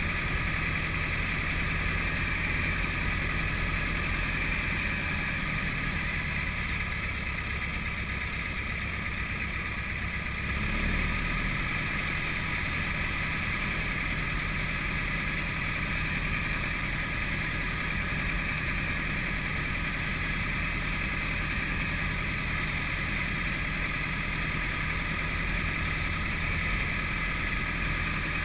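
Light aircraft's piston engine running at low power, its propeller turning, heard from inside the open cockpit as a steady rumble with some wind hiss. The engine note shifts and gets slightly louder about eleven seconds in.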